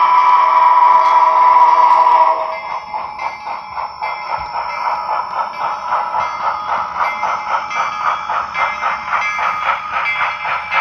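Soundtraxx Tsunami digital sound decoder in an HO scale brass 2-8-2 Mikado steam locomotive model, playing through the model's small speaker: a steam whistle chord held for about the first two and a half seconds, then steam exhaust chuffs at a quick, even beat as the locomotive runs.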